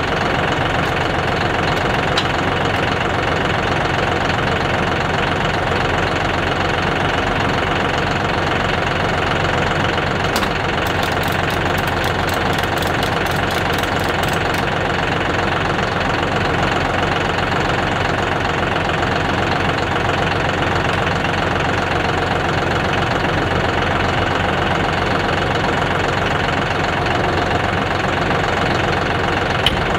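John Deere utility tractor's diesel engine idling steadily. A short run of quick, faint high clicks comes about ten seconds in.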